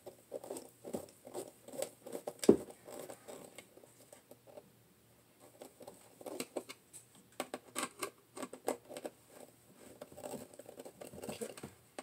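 Small hand screwdriver turning a screw through a plastic drawer latch into a wooden drawer front, making scattered light clicks and scratchy scrapes. There is one sharper knock about two and a half seconds in, and a quieter spell around the middle.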